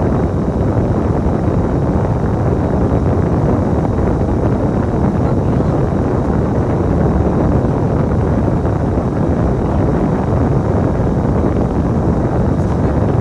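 Steady low rumble of a moving bus, with engine and road noise heard from inside the cabin.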